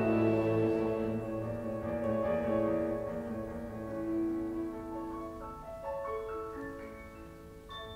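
Chamber orchestra of strings, flute and piano playing a quiet sustained passage that slowly dies away, with a few soft separate notes and a high note near the end.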